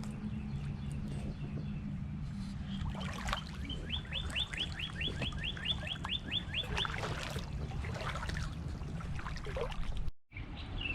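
A songbird singing a quick trill of about a dozen high, down-slurred notes over a few seconds, with scattered other chirps, over a steady low rumble.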